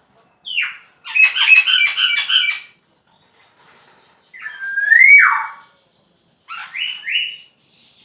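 Male black-naped oriole singing: a short falling note, then a rapid run of harsh notes, a loud rising fluty whistle about halfway through, and a short phrase of notes near the end.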